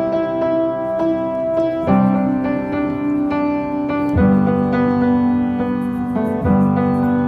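Background music: a slow piano-led intro of sustained chords, a new chord struck about every two seconds.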